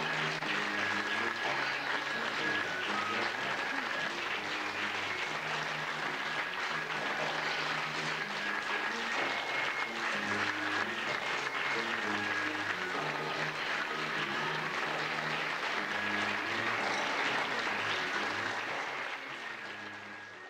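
Audience applauding over music, both fading out over the last couple of seconds.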